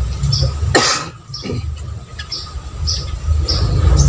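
A person coughs once, sharply, about a second in. Behind it, a bird's short high chirps repeat about every two-thirds of a second over a steady low rumble.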